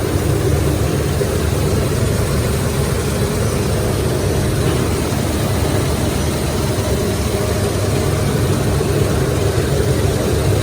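John Deere X9 combine harvester running steadily, with a constant heavy, low engine drone.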